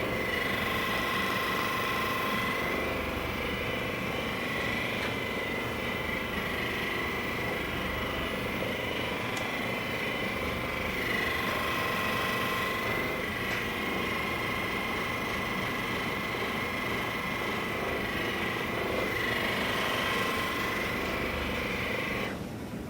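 Electric massage gun running steadily against the body: a continuous motor buzz with a whine that wavers slightly in pitch now and then. It cuts off abruptly near the end.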